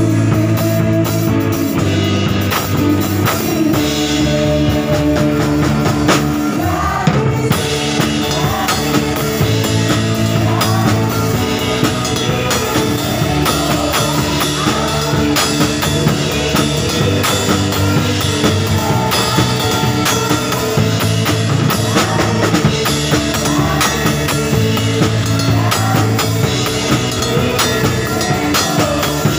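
Acoustic drum kit played live, cymbals, snare and toms, along with a recorded worship band track whose bass, chords and singing sound underneath.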